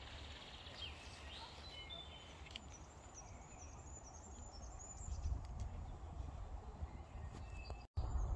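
Small birds chirping in short bursts, mostly in the first few seconds, over wind rumbling on the microphone, which grows louder about five seconds in.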